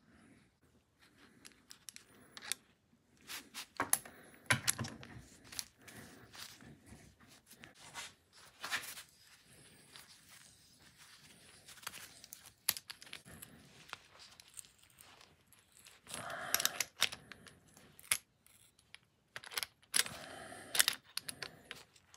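Hand assembly of an AN10 hose end: irregular metal clicks, clinks and scraping from wrenches and the black aluminium fitting, with gloved hands rustling against the braided hose. Louder stretches of scraping come about two-thirds of the way through and again near the end.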